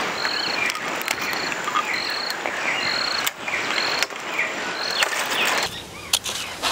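Outdoor chirping of wildlife: a short high chirp repeating about once a second, with quick falling whistled notes between, over a steady hiss.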